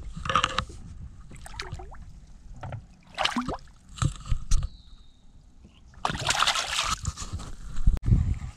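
Water splashing and sloshing as a smallmouth bass is held by the lip in the water and released: short splashes with small gurgles, then a longer, louder burst of splashing about six seconds in.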